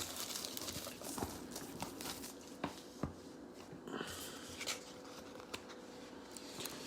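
Faint rustling and handling of cardboard card boxes and plastic packaging, with a few light clicks and taps.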